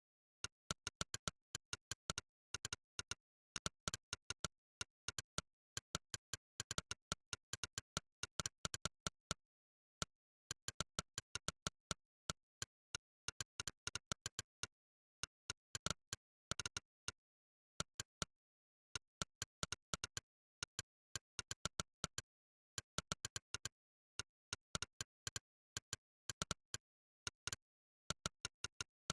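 Monkeytype's 'click' keystroke sound effect, one short sharp click per key press, coming in quick irregular runs of several clicks a second as words are typed, with brief pauses between runs. Between the clicks there is dead digital silence.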